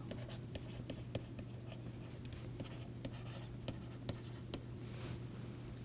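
Faint stylus strokes on a pen tablet while handwriting: irregular light taps and scratches, several a second, over a steady low hum.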